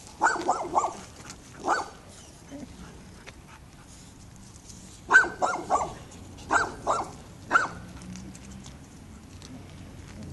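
Dog barking in short, quick barks: three in a row at the start, one more a couple of seconds in, then a run of barks from about five to seven and a half seconds in.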